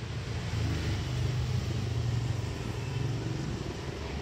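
Steady low hum of motor traffic on the street, with a motorcycle engine among it.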